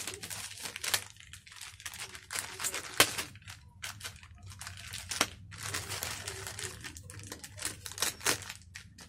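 Plastic courier bag crinkling and rustling as it is handled and slit open with a knife, in irregular crackles, with one sharper crack about three seconds in.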